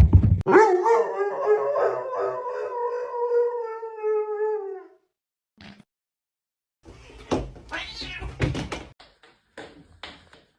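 A cat's long, drawn-out yowl that lasts about four seconds and drops slightly in pitch at the end. After a short pause come a few knocks and scuffling sounds, then light taps.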